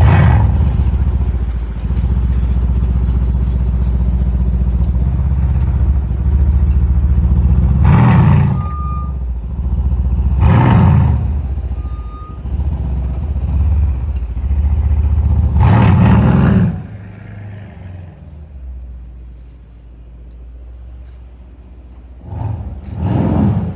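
Mercedes-AMG C63 S engine idling with a steady low rumble, revved in short sharp blips about five times, the last two close together near the end. The idle grows quieter about two-thirds of the way through.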